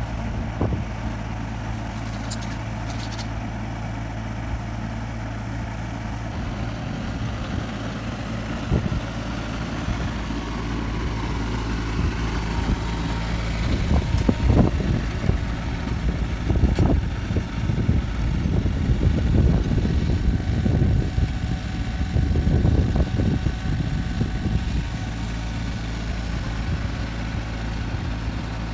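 Kubota mini excavator's diesel engine running steadily. Through the middle stretch, louder irregular clanks and rattles join it as the machine travels on its tracks carrying a load slung from its lifting bracket.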